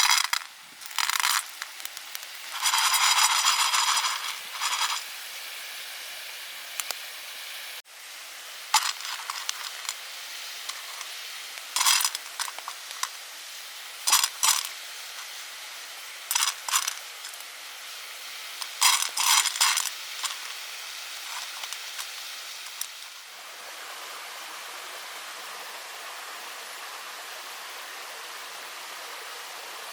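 A series of short scrapes and clinks, one or two at a time and spread over the first twenty seconds, as of camp cookware or utensils being handled, over a steady outdoor hiss.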